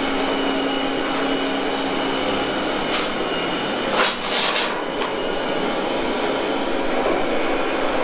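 Proscenic M9 robot vacuum cleaner running steadily as it works along a wall edge: an even whir with a steady low hum. Brief crackles come through about three seconds in and again about four seconds in.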